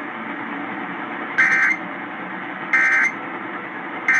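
Emergency Alert System end-of-message code over AM radio: short, raspy two-tone data bursts about a second apart, two complete and a third starting at the very end, with steady radio hiss between them. They mark the end of the broadcast severe thunderstorm warning.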